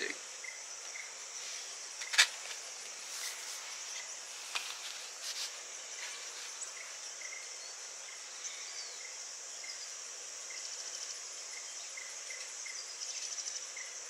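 Insects buzzing in a steady high-pitched drone, with faint short chirps repeating lower down. A few small clicks and taps break in, the sharpest about two seconds in.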